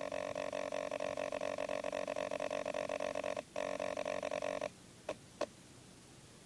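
Traxxas Rustler's brushless motor buzzing with a fast stutter while the truck stays still, the motor powered but not turning the wheels. The buzz cuts off about two-thirds of the way in, followed by two short ticks.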